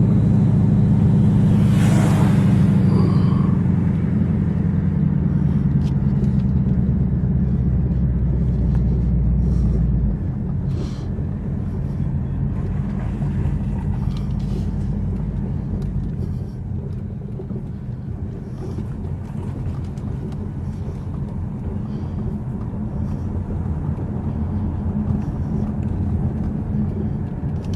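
Ford Mustang GT's V8 engine running under way, a steady low drone that eases off about ten seconds in, with a brief whoosh near the start.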